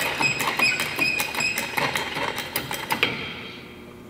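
A small shop press being worked to push a bearing out of a steel rod: its mechanism clicks and squeaks about four times a second, then dies away about three seconds in.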